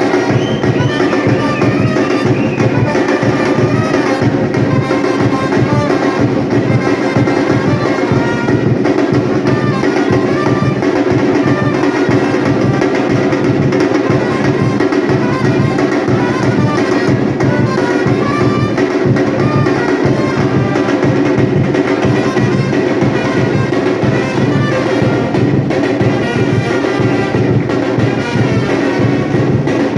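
Batucada ensemble playing live: driving drums and percussion in a dense, steady rhythm, with trumpets carrying the melody over it.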